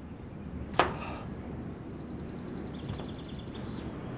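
A single sharp knock of a hand striking a wooden door, about a second in, over a low steady background rumble.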